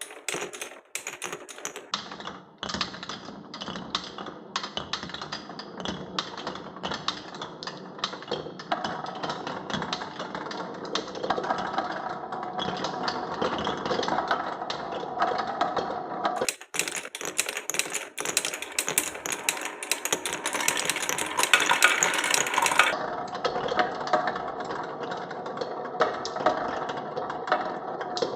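Glass marbles rolling and clattering through a wooden marble run: a dense stream of clicks and knocks over a continuous rolling rumble, with a brief break about two-thirds of the way through.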